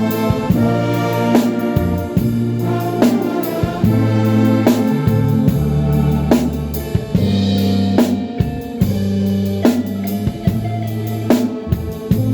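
Live band music: a drum kit keeps a steady beat under held chords and a moving bass line.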